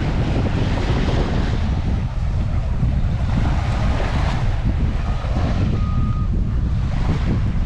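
Wind buffeting the microphone with a heavy rumble, over the hiss of surf washing onto the beach that swells and fades a few times.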